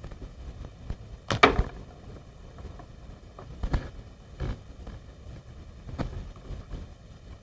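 Play-Doh and markers being handled on a tabletop: a few scattered soft taps and knocks, the loudest about a second and a half in.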